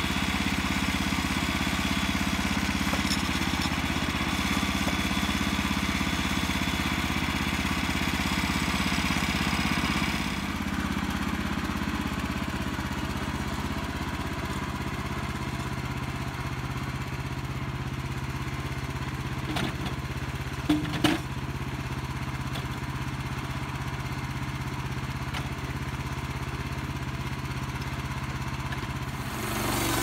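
Small gasoline engine of a Norwood LumberMate LM29 portable bandsaw mill running steadily. About ten seconds in, the higher hiss falls away and it settles to a lower, even hum. A few sharp knocks come a little past the middle.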